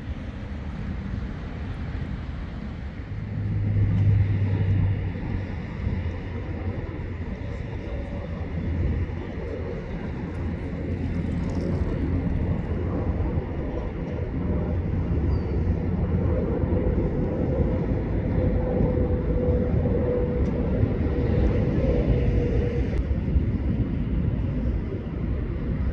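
Outdoor ambience: a steady low rumble, with a brief louder low hum about three to five seconds in and a faint held tone from about sixteen to twenty-two seconds.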